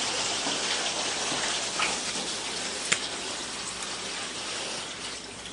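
Steady hiss of noise, like static or rain, that fades slowly, with a single faint click about three seconds in.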